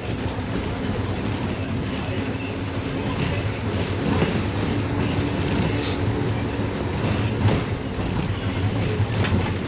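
Green minibus driving along a road, heard from inside the passenger cabin: a steady low engine hum with road noise. A few short rattles or knocks from the cabin, the sharpest near the end.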